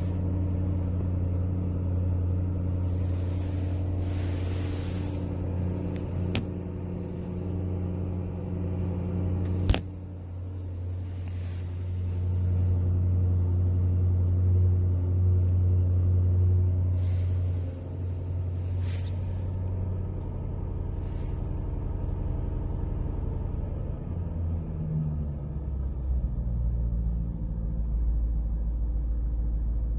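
Jaguar F-Type SVR's stock supercharged 5.0-litre V8 idling steadily at about 1,000 rpm; about three-quarters of the way through, the idle drops to a lower pitch. A sharp click about ten seconds in.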